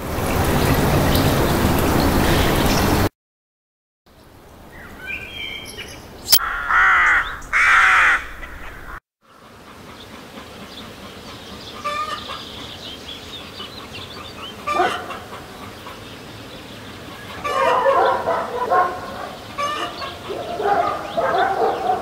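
Recorded ambience samples auditioned one after another. First comes a dense, even street-noise bed for about three seconds. After a short gap, rooks caw in a rookery, and after a second gap comes a quieter village morning ambience with scattered bird calls that grow busier near the end.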